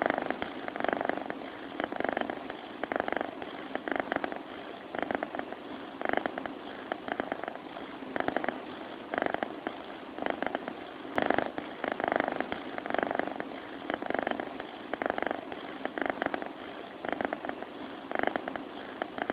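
Sleeping cat purring, a rhythmic rasp that swells and fades with each breath, about one breath a second.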